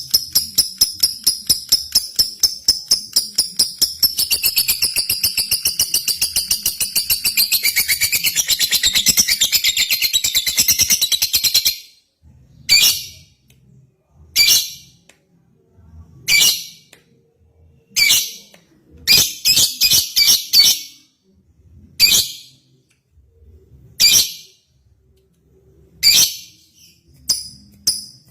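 Lovebird singing a long, rapid chattering trill for about twelve seconds, then giving short separate chirps roughly every two seconds.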